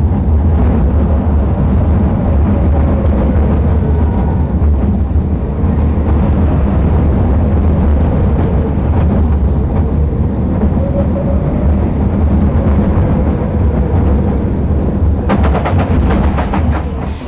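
Roller coaster train running along its track: a steady, loud rumble with a faint wavering whine, and a run of rapid clicks near the end.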